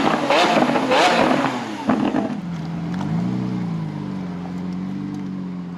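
Lamborghini Aventador V12 engine running hard with sharp cracks about twice a second. About two seconds in, it drops to a steadier, lower note that rises and falls once, then tails off.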